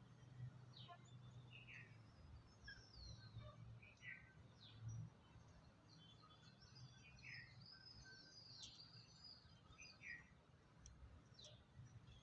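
Lovebirds chirping faintly: a run of short, high calls that slide downward, about one every second, with a brief cluster of chatter near the middle, over a low steady hum.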